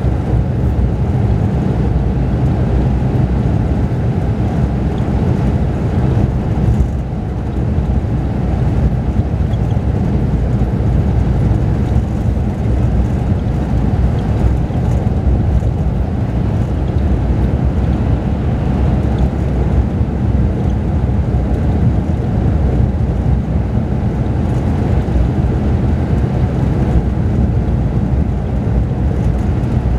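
Mercedes-Benz O-500RSD bus's diesel engine running steadily under way, with road noise, heard inside the cabin of the upper deck as a constant low drone that dips briefly about seven seconds in.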